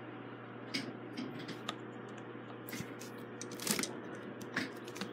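Light metal clicks and scrapes from working the screws in the ball joint of an old cast-iron Emerson desk fan, about one a second, over a low steady hum.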